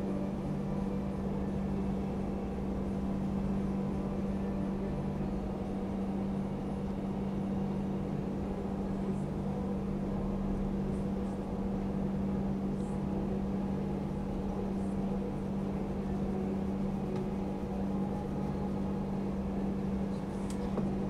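Steady low mechanical hum from a running appliance, with a few faint soft ticks.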